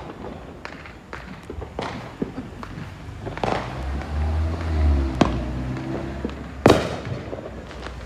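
Neighbourhood fireworks and firecrackers going off all around: an uneven run of sharp cracks and bangs at different distances, with one loud, close bang near the end. A deep low rumble swells through the middle.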